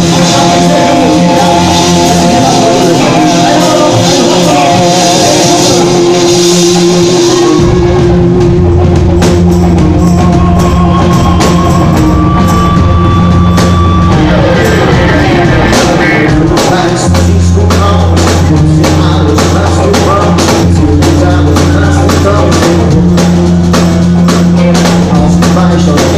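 Live pop-rock song played loud: acoustic guitar with bass and drums, a voice singing at times. A steady drum beat comes in about eight seconds in.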